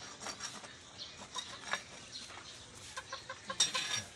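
Chickens clucking, with a quick run of short clucks from about three seconds in, over scattered short scrapes and clicks.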